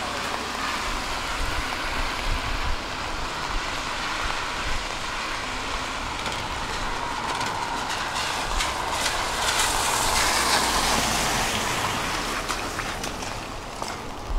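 Steady hiss of traffic on a rain-soaked street, with a vehicle passing a little over halfway through, its sound swelling and then fading.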